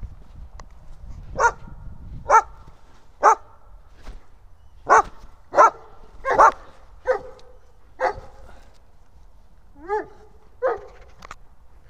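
A small sighthound barking about ten times in short, sharp barks at uneven intervals during a game of fetch, one bark near the end rising in pitch like a yelp.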